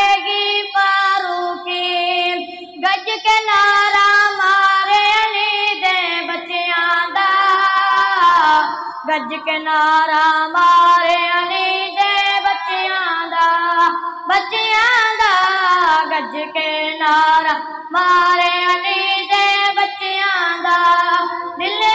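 A boy singing a Punjabi naat unaccompanied into a microphone, with long held notes and sliding ornaments.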